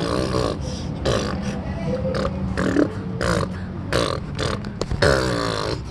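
A person making wordless vocal sounds: short voiced grunts and gliding hums, broken up by a few sharp clicks. Under them is a steady low hum.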